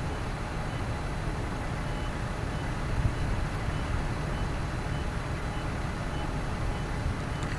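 Steady low engine rumble of an idling fire engine, with a faint high electronic beep repeating about twice a second.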